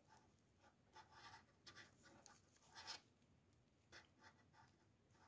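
Faint, soft scratching of a gold-plating pen's nib stroked over a metal bangle bracelet, in short irregular strokes.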